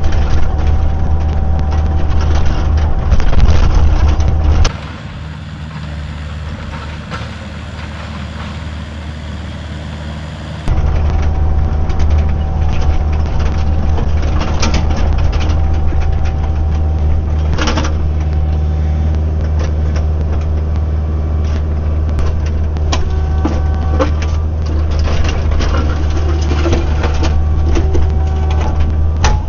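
Kubota diesel engine of heavy equipment running steadily under work, with a few sharp knocks. For several seconds early on the sound drops to a quieter, different stretch before the engine returns.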